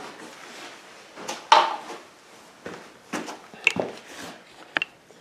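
Hard plastic protector pieces and their packaging being handled: scattered knocks, clicks and rustling, the loudest knock about one and a half seconds in.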